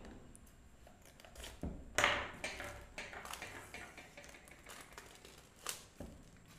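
Thin plastic shrink wrap being peeled and pulled off a cardboard box, crinkling and rustling in short bursts, loudest about two seconds in, with a sharp crackle near the end.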